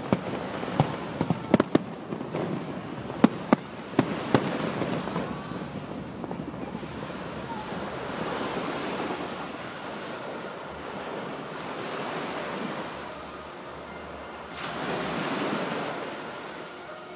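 Aerial firework shells bursting overhead, about eight sharp bangs in the first four seconds or so, over the wash of surf breaking on the beach. After that the surf alone goes on, swelling and falling, loudest near the end.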